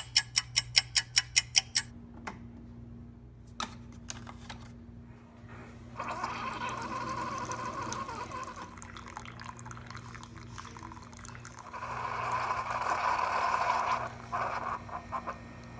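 A quick run of sharp clicks, about seven a second for under two seconds, over a steady low hum. It is followed by two stretches of running or pouring water, the second louder.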